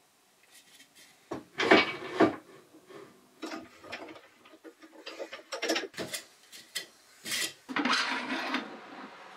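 Setting up a wood lathe by hand: a wooden blank knocked onto the spur drive centre, and the tailstock and tool rest slid and clamped on the cast lathe bed, giving irregular clunks, knocks and scrapes of wood and metal. The loudest come about two seconds in and near the end, with the lathe motor off.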